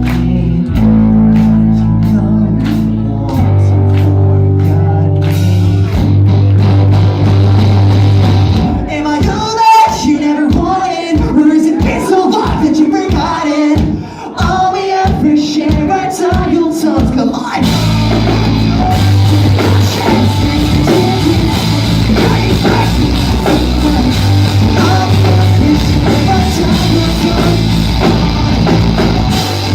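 Pop-punk band playing live and loud, with electric guitars, bass, drums and singing. Held chords fill the first several seconds. Then, for about eight seconds, the band plays short stop-start hits about two a second before coming back in at full tilt.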